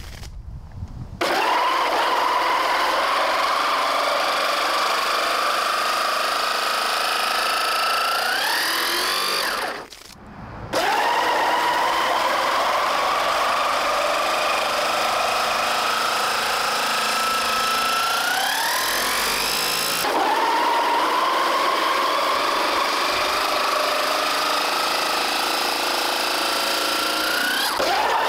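Four 775 DC motors driving a 3D-printed gearbox and double-impeller centrifugal water pump, running with a loud whine, its plastic gears turning in water, over the hiss and splash of the water jet. The pitch creeps up and then sweeps sharply higher, several times. The motors start about a second in, stop briefly around the middle and start again.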